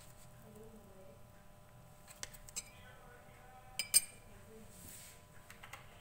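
A metal spoon clinking against a small glass bowl: two light clinks about two seconds in, then two sharp, louder clinks in quick succession about four seconds in.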